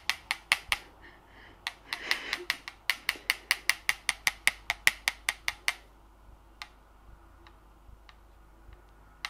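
Hair straightener's plates clacked open and shut in quick succession, about five sharp clicks a second, with a brief pause about a second in; after about six seconds only a few faint ticks remain.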